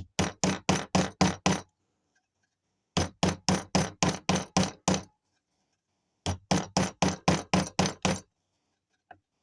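Mallet striking a sterling silver ring on a ring mandrel, rounding the ring out after soldering. The blows come in three quick runs of about five a second, with short pauses between them.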